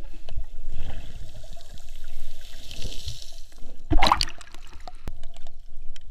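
Sea water sloshing and bubbling while snorkeling, with a low rumble and a louder splash about four seconds in.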